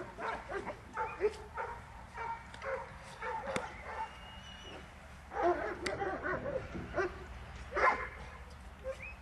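Dobermann puppy barking in short, repeated barks, loudest about five and a half and about eight seconds in.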